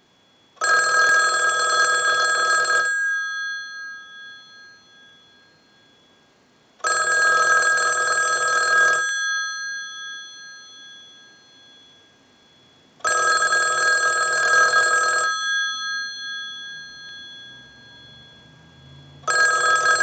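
ITT 554 rotary dial wall telephone's bell ringing on a ring cycle from a telephone analyzer, as for an incoming call: the repaired ringer rings in. Bursts of about two seconds of ringing come roughly every six seconds, the bell dying away between them. There are three full rings and a fourth starting near the end.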